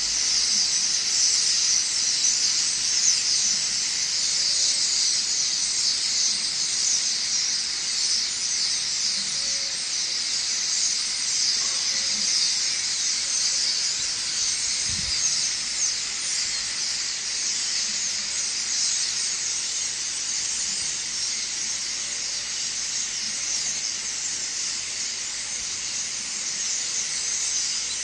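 A large flock of small birds chirping all at once, a dense, unbroken high-pitched chatter of many overlapping calls, as in a noisy dawn chorus.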